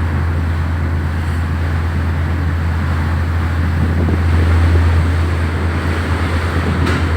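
Steady low engine drone with a noisy rush over it, swelling a little about four to five seconds in.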